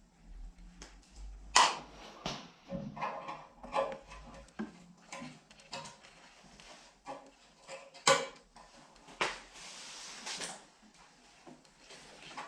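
Irregular metallic clanks, knocks and clicks of hand tools working the steel parts of an old surgical table, forcing seized, rusted screws. The two loudest knocks come about a second and a half in and about eight seconds in, with a short scraping stretch just after nine seconds.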